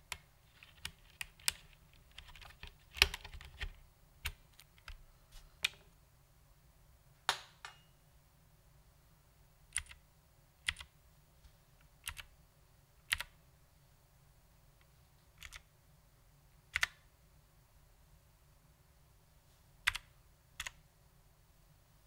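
Vintage Cherry MX Blue switches on an HMC C386SX keyboard clicking as keys are pressed one at a time. There is a quick cluster of clicks in the first few seconds, then single keystrokes every second or two.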